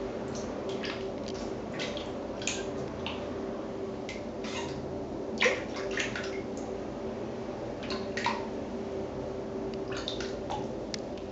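Small splashes and drips of shallow water as a sphynx cat steps and shifts about in a plastic basin. The splashes are short and scattered, the sharpest about halfway through, over a steady hum.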